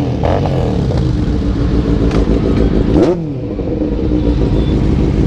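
Several motorcycle engines idling together, with one throttle blipped about three seconds in, the revs rising quickly and falling back.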